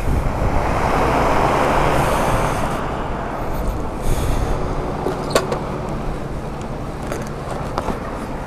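Steady low hum of campsite machinery, with a louder rushing noise in the first few seconds and a few sharp clicks around the middle and near the end.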